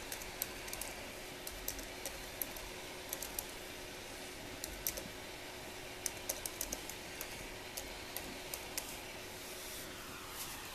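Keys on a computer keyboard being typed in short, irregular runs of clicks, over a faint steady hum.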